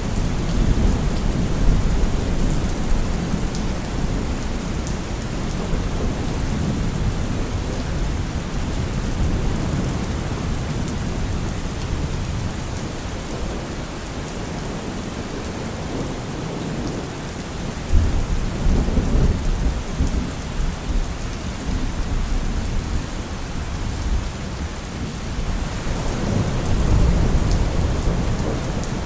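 Steady rain with low rolls of thunder. A louder rumble starts suddenly about eighteen seconds in, and another swells near the end.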